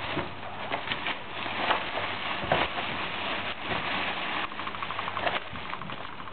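Scuffling and rustling in a guinea pig's cage, then, about four and a half seconds in, a rapid, even run of clicks: a guinea pig chattering its teeth, a sign of fear.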